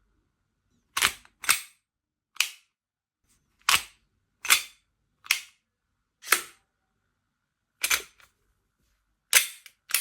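Umarex Glock 18C airsoft pistol firing single shots: about ten sharp cracks at uneven intervals, roughly one a second, two of them close together near the start.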